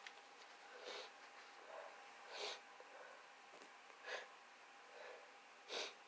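A person with a head cold sniffling through a congested nose: a string of short, quiet sniffs about a second apart, the one about two and a half seconds in the loudest.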